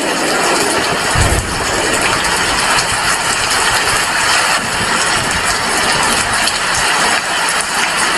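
Heavy rain falling steadily, a dense even hiss, with a brief low thump about a second in.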